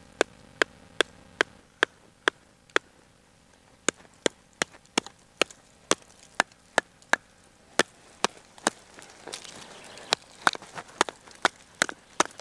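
Repeated sharp wooden knocks, about two to three a second with a brief pause about three seconds in, as a heavy hardwood branch is worked with the Blind Horse Knives Bushcrafter, a thick flat-ground bushcraft knife.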